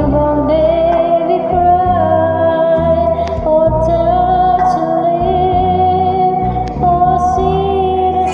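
A woman singing along with a karaoke backing track, holding long notes over the accompaniment.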